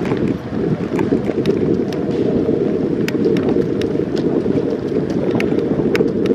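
Wind rushing over the microphone of a camera on a moving bicycle, a steady low buffeting, with scattered light clicks and ticks every so often.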